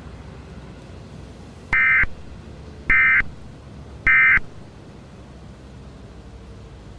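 Emergency Alert System end-of-message data bursts: three short, buzzy digital squawks about a second apart, the SAME code that marks the end of an alert. They sit over a faint low background hum.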